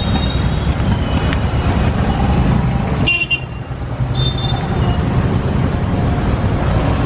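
Dense city street traffic: car and motorbike engines running in a slow queue, with several short horn toots over the steady traffic noise.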